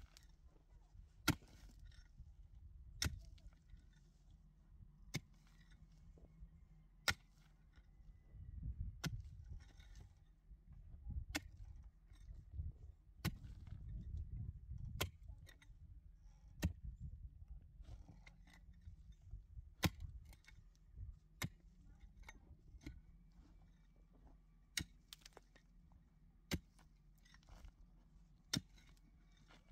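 Sharp single knocks, one about every one and a half to two seconds, over a low, uneven rumble that swells in the middle.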